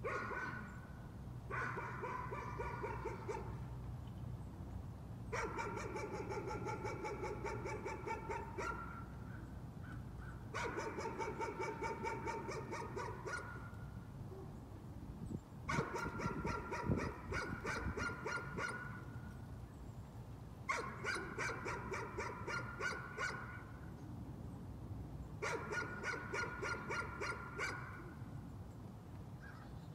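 A dog barking over and over in rapid runs of barks, each run about three seconds long and starting again about every five seconds: nuisance barking that keeps going. A couple of sharp knocks come about halfway through.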